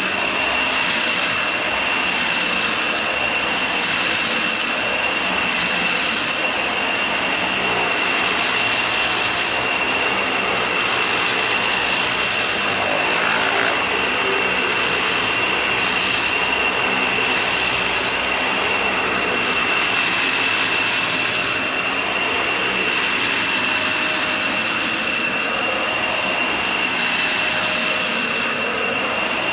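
Vacuum cleaner running steadily over a shaggy rug, with a high steady whine over its rushing hiss; the hiss rises and falls a little every second or two.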